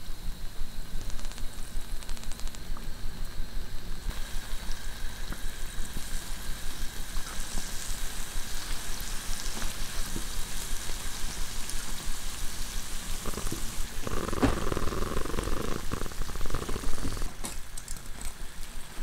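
Braided yeast doughnuts deep-frying in oil over low heat, with a steady, gentle sizzle and crackle of bubbling oil. Near the end there are a few clicks as metal tongs work in the pan.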